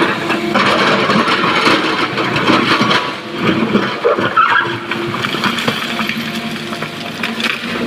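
Sany crawler excavator's diesel engine running under load while its steel bucket digs into a pile of blasted rock, with stones scraping and knocking against the bucket at irregular moments.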